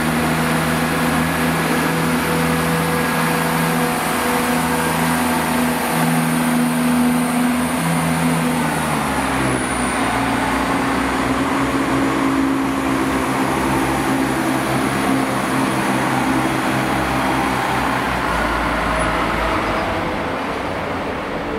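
Class 170 Turbostar diesel multiple unit pulling away under power, its underfloor diesel engines giving a steady drone. The engine note changes about nine seconds in, and the sound eases slightly near the end as the train draws away.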